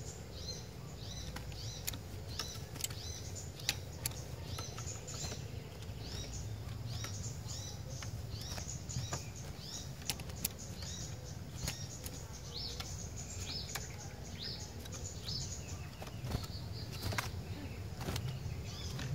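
Cinereous tit (glatik batu) calling: a steady stream of short, high, hooked notes, about three a second, with sharp ticks scattered among them.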